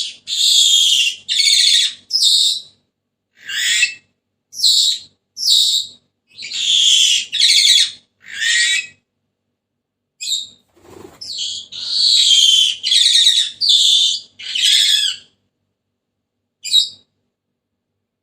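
Senegal parrot giving a run of loud, shrill, raspy calls, each about half a second long. The calls come in two bouts with a short pause about ten seconds in, and there is a single short call near the end.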